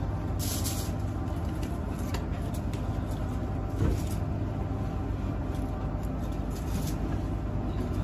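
Aluminium foil rustling and crinkling as it is pressed down over a cooking pot, over a steady low rumble from the kitchen, with one louder handling noise about four seconds in.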